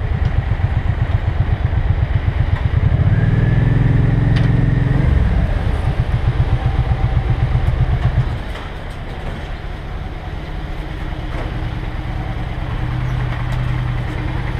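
Motorcycle engine idling with a pulsing exhaust beat and a brief rev about three seconds in. The engine cuts off about eight seconds in, leaving a quieter steady hum of another motorcycle idling.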